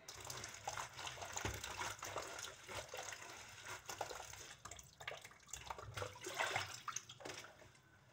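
Water splashing and sloshing in irregular strokes as hands rinse a batch of cassava leaves in a plastic basin of water.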